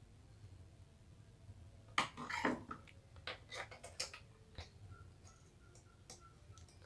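Light clicks and knocks of small LED boards, wires and a lamp driver board being handled and set down on a wooden workbench, in a quick cluster from about two seconds in. A faint high tone repeats several times near the end.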